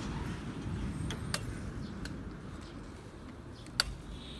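Road traffic rumbling steadily, with a faint click a little after one second and a single sharp click near the end.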